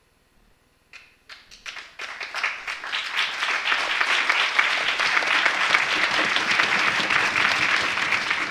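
Near silence, then an audience breaks into applause about a second in: a few scattered claps at first, then full, steady clapping from the whole hall.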